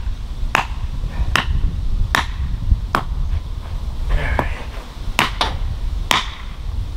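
A hammer driving a stake into a hard-packed limestone screenings base: sharp single blows, about eight of them, roughly one every ¾ second.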